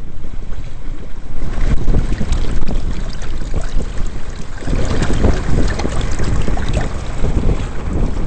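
Wind buffeting the microphone over water rushing and splashing against the hull and outrigger floats of a Hobie Adventure Island sailing kayak running through choppy water. The splashing picks up about a second and a half in and grows heavier past the middle.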